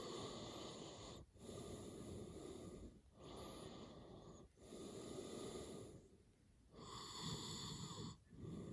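Man sleeping and snoring hard: a run of snoring breaths, each about a second and a half long, with short breaks between them and a slightly longer pause a little past the middle.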